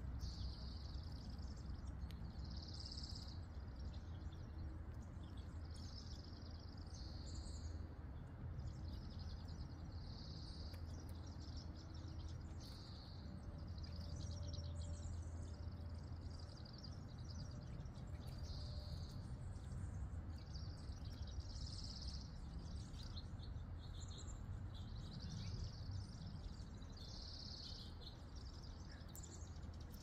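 Small songbirds chirping, short high calls every second or so, over a steady low background rumble.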